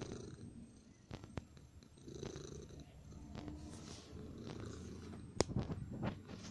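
Domestic cat purring right at the microphone, a steady low rumble, with a few sharp knocks, the loudest about five seconds in, as the cat bumps against the camera.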